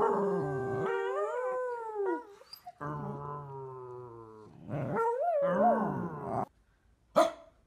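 A corgi howling in three drawn-out calls, the first rising and falling in pitch.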